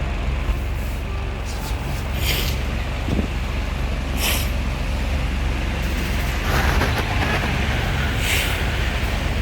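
Mini ceiling fan running: a steady motor hum with rushing air noise, and brief high swishes about every two seconds.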